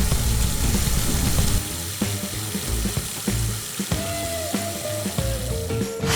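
Steady hissing noise over background music.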